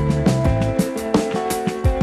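Background music: a band track with a steady drum-kit beat, bass and sustained chords.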